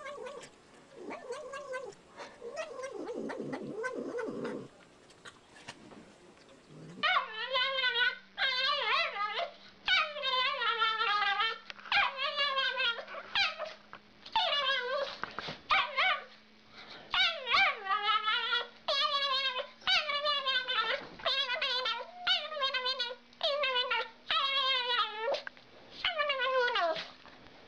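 A cat growling low for the first few seconds, then a small dog giving repeated wavering, howl-like calls, about one a second.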